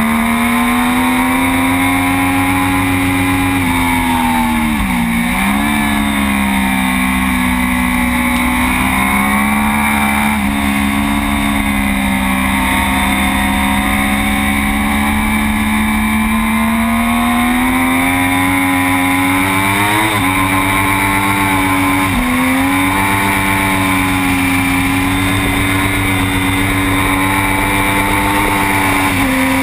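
Racing sportbike engine running at high revs, heard onboard at race speed with rushing noise. The pitch mostly holds steady, but drops and recovers about five seconds in, and changes sharply twice around twenty seconds in.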